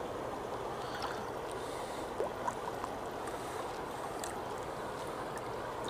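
River current rushing steadily, with a couple of small clicks about two seconds in.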